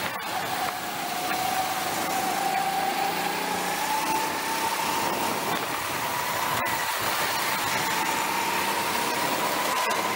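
Go-kart engine heard on board, its pitch rising slowly as the kart gains speed, under heavy wind rush on the microphone.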